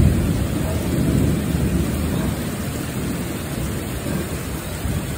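Thunder rumbling low and slowly dying away, over steady rain.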